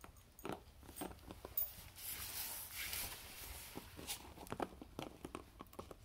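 Patterdale terrier gnawing and licking at a lidded plastic peanut butter jar held between her paws, trying to get it open: irregular clicks and scrapes of teeth and claws on plastic, with a longer rustling scrape in the middle.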